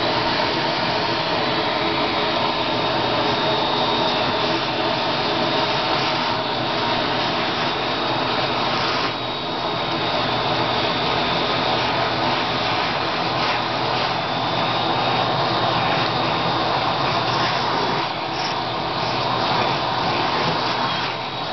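Household vacuum cleaner running steadily, a hiss of rushing air with a thin high motor whine, dipping briefly a couple of times.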